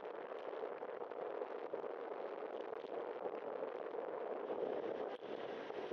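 Steady noise of a bicycle riding on wet pavement: tyres running through the water film, mixed with wind on the camera microphone. A brief click about five seconds in.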